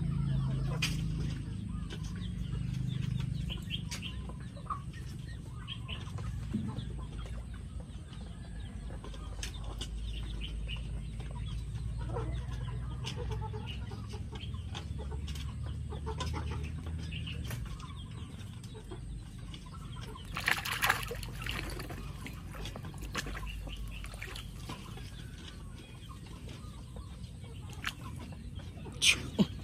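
Chickens clucking intermittently in the background over a low steady rumble, with a louder burst about two-thirds of the way through.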